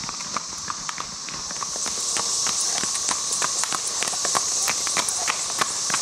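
Horses' hooves clip-clopping as several horses walk by, a few irregular hoofbeats a second, over the steady drone of a chorus of 13-year periodical cicadas. The hoofbeats and drone grow a little louder about two seconds in.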